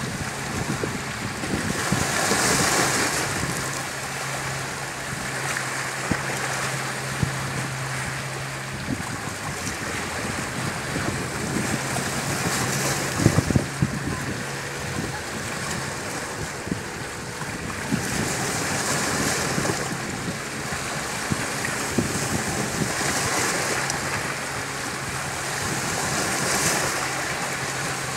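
Sea waves washing onto the shore, swelling and falling back every few seconds. A steady low hum stops about nine seconds in, and a few sharp knocks come near the middle.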